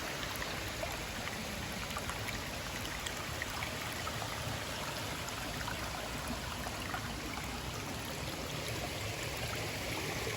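Small stream of water running steadily at a trailside water source.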